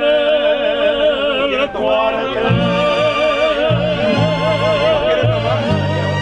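Mariachi band playing live: violins hold long notes with vibrato while a guitarrón plays a moving bass line that comes in strongly about two and a half seconds in.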